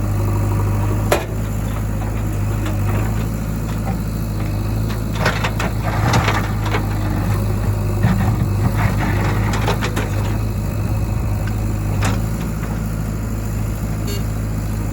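Heavy diesel engine of a JCB 3DX backhoe loader running steadily, with a sharp knock about a second in, a burst of clatter through the middle and another sharp knock near the end.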